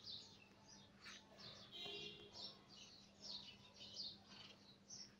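Faint chirping of small birds: many short, high, falling chirps scattered throughout, over a faint steady low hum.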